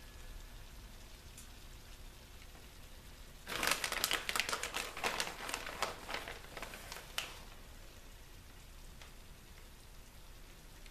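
Plastic bag of shredded cheese crinkling and rustling, a dense run of sharp crackles for about four seconds starting about a third of the way in, as a hand digs out handfuls of cheese.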